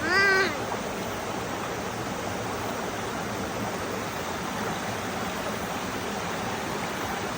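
Water of a mountain stream rushing steadily. A short, high-pitched voice sounds at the very start.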